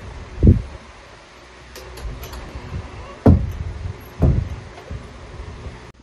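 Three dull thumps, about half a second, three seconds and four seconds in, with a few light clicks between them over a steady low hum.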